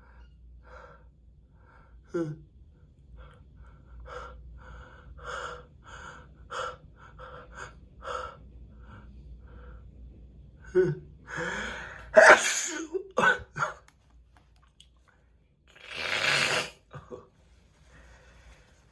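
A man with a stuffed-up head cold catches his breath in a run of short, quick gasps. About eleven seconds in he lets out a hard sneeze, followed closely by a second sharp one. A longer, noisy burst of breath comes out through the nose near the end.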